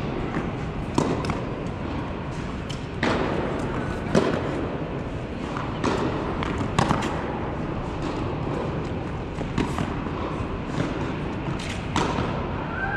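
Tennis rally in a large indoor hall: sharp knocks of racket strikes and ball bounces at irregular intervals, over the steady hum of the hall.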